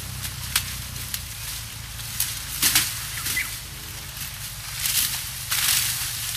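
Sugarcane being cut by hand: irregular chops and swishes of cane knives through stalks, with dry cane leaves rustling.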